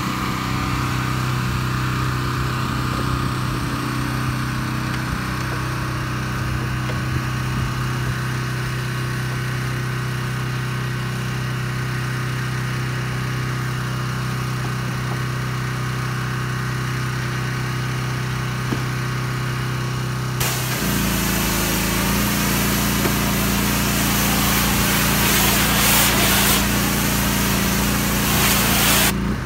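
Small gas engine of a pressure washer running at a steady hum. About two-thirds of the way in, the wand opens and a loud hiss of high-pressure spray starts, the engine note changing under the load. The spray cuts off suddenly just before the end.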